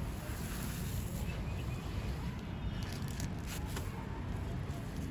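Gritty grey concrete crumbling, a steady gritty hiss with a few faint crunches in the middle, over a low rumble.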